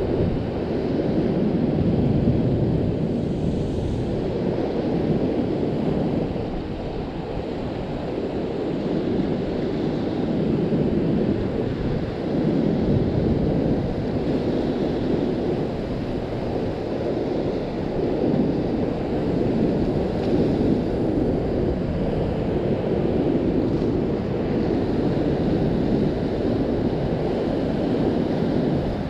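Rough surf washing against a rock shelf, mixed with wind buffeting the microphone: a steady, low rumbling wash that swells and eases gently.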